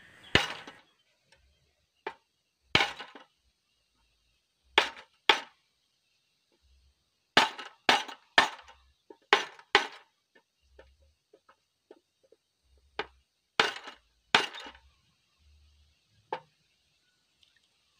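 Hammer blows on the metal handlebar of a Quick E85 hand tractor, straightening a bend it took when the tractor rolled over. About fifteen sharp metallic knocks at irregular spacing, some in quick pairs or threes.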